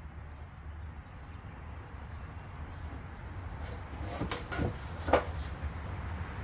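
A long metal straightedge being shifted and set down on a plywood sheet: a few short scrapes and knocks about four seconds in, the loudest a sharp knock about a second later, over a steady low hum.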